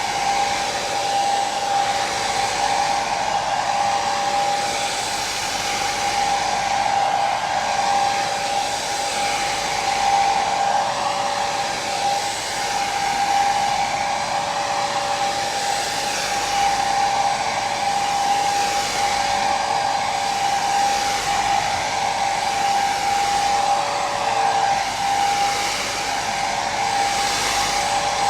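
Hair dryer running continuously: an even rush of air with a steady whine from its motor and fan, swelling gently every few seconds.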